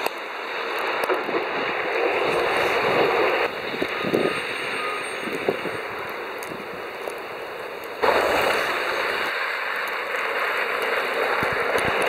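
Road traffic in a snowstorm: tyres hissing through wet slush, a steady wash of noise. Its level drops suddenly about three and a half seconds in and jumps back up about eight seconds in.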